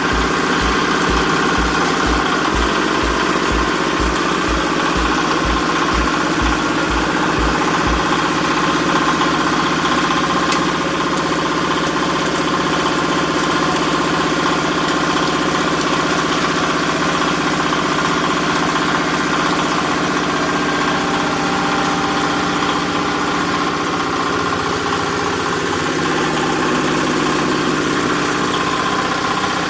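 Diesel engine powering a hydraulic baler press, running steadily with a steady whine over it. A low pulse about twice a second stops about eight seconds in.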